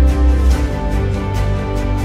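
Background music with a deep bass, held tones and a light steady beat of about four ticks a second.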